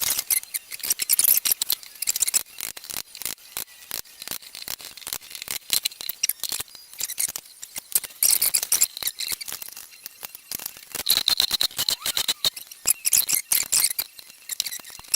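Rapid, irregular metallic clicking and light scraping as tools work the Suzuki TS250's aluminium crankcase halves apart.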